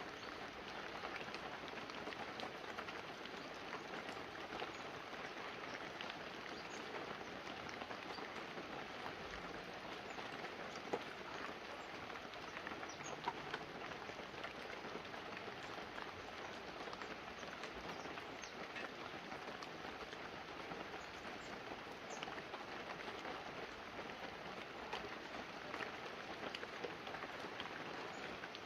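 Light, steady rain falling on banana leaves and a roof, a soft even patter with a few louder single drops near the middle.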